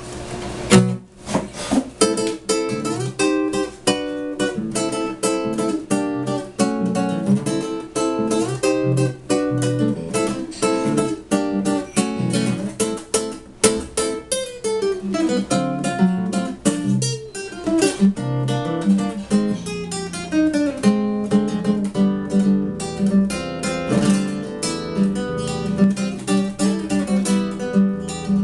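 Acoustic guitar music: a continuous run of plucked notes and chords.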